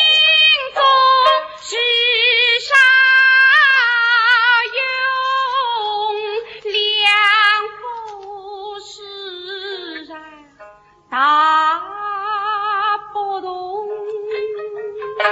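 A woman singing a slow Suzhou tanci (弹词) melody, drawing out long notes with a wide vibrato. She pauses about ten seconds in, then starts a new phrase. Plucked-string accompaniment comes back near the end.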